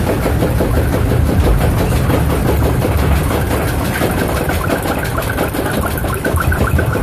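Primeval Whirl spinning coaster car climbing its chain lift: a steady mechanical clatter of fast clicks over a heavy low rumble.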